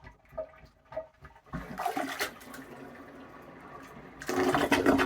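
A few soft plunger knocks, then water rushing down a clogged toilet's drain from about a second and a half in, surging louder again near the end as the clog clears.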